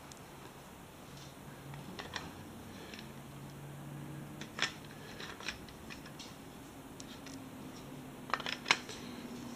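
Scattered sharp plastic clicks and knocks from a Kobalt 24-volt battery pack being handled and fitted to a tool, the loudest a cluster of clicks near the end.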